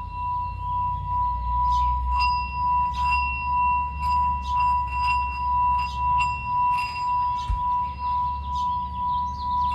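Small brass singing bowl rimmed with a wooden mallet: a steady ringing tone that swells and fades in a regular pulse, about three swells every two seconds, with a few light clicks of the mallet against the rim.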